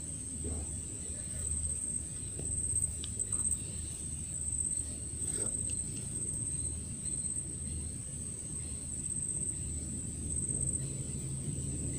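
A steady, high-pitched insect trill, pulsing slightly, over a low rumble.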